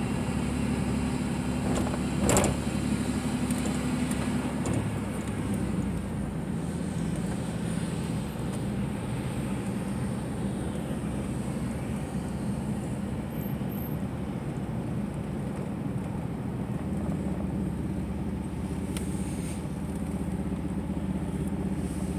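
Pickup truck's engine and tyre noise heard from inside the cab while driving slowly, a steady low rumble with a short click about two seconds in.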